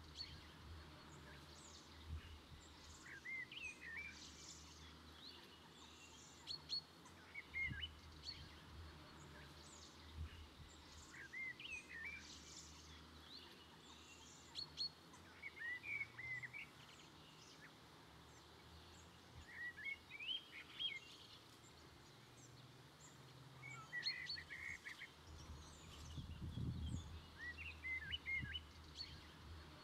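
Faint woodland birdsong: short chirps and little trills in clusters every few seconds, over a quiet steady background hiss.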